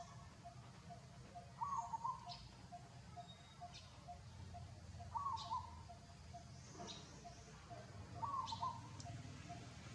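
Birds calling: a short phrase repeated about every three seconds over a steady, fast string of pips, with thin high chirps in between.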